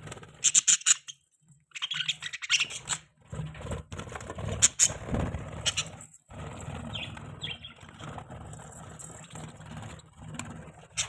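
Budgerigars chirping in short, scattered bursts over a steady low hum.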